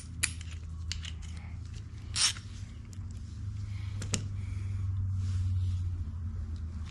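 Scattered metallic clicks and a short scrape of hand tools as the oil drain bolt is threaded back in and snugged with a 13 mm socket, over a steady low hum.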